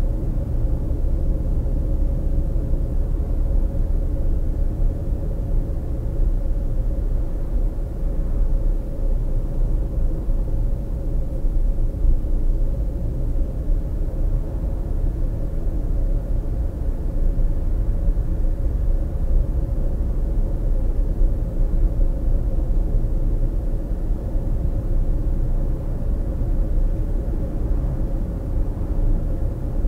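Steady road noise inside a moving car's cabin: a low rumble of tyres and engine with a faint steady hum running through it.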